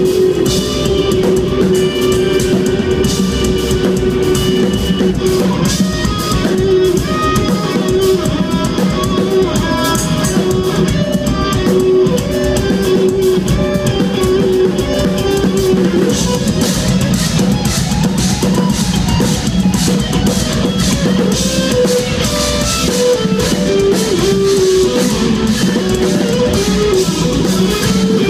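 Live instrumental progressive metal played loud: intricate electric-guitar lines over a drum kit, with no vocals.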